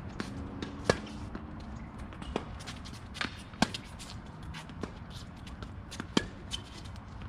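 Tennis rally on a hard court: three loud, sharp pops of racket strings hitting the ball, about two and a half seconds apart, with fainter ball bounces and the opponent's more distant hits in between.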